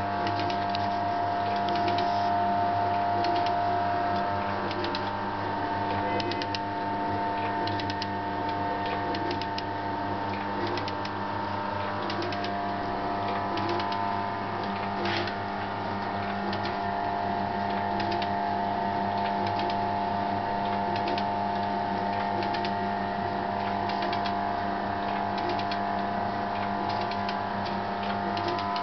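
Boxford metal shaper running: a steady motor and gear hum, with a regular repeating beat as the ram strokes back and forth and many light mechanical clicks.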